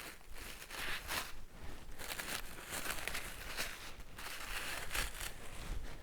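Rustling and crinkling in uneven bursts, about one or two a second, as something crinkly is handled.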